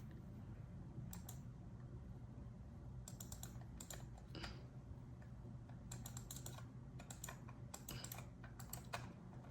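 Keys being typed on a computer keyboard in irregular short bursts of clicks, over a steady low hum.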